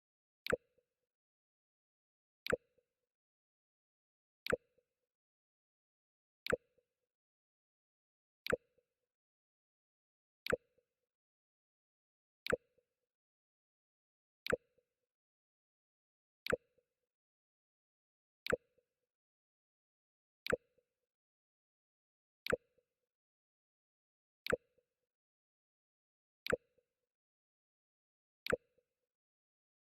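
Mac OS X 'Jump' sound effect, played over and over: a short sharp click with a brief low blip after it, repeating evenly every two seconds.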